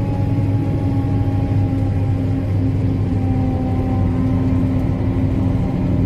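Self-propelled forage harvester working through standing maize, its engine and chopping machinery running with a steady drone, heard from inside the cab. A constant low hum carries a few held tones throughout.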